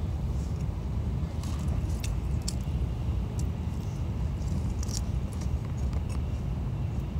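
Steady low rumble of a Shinkansen bullet train's cabin at speed. A few brief crinkling clicks close to the microphone are heard about a second and a half, two, two and a half, and five seconds in.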